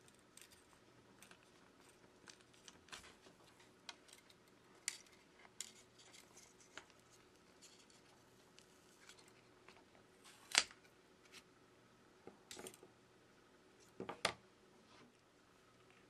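Faint small clicks, scrapes and taps of hands and tools working on an opened smartphone as its battery and adhesive strips are pulled out, with a sharper knock about two-thirds through and a double knock near the end.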